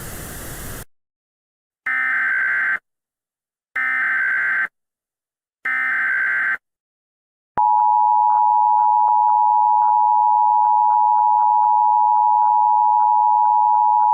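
Emergency Alert System tones: three short, harsh SAME data-header bursts about a second long each, then after a pause the steady two-tone EAS attention signal starts and holds, announcing an emergency message.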